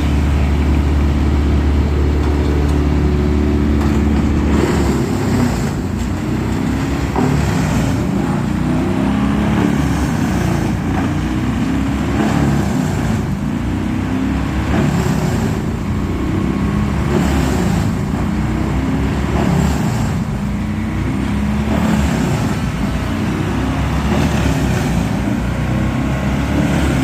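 Crane engine running, steady at first, then rising and falling in pitch again and again as it is revved to work the grapplesaw's hydraulics.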